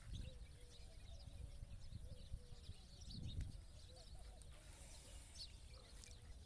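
Birds chirping and calling faintly, scattered short chirps over a low rumble.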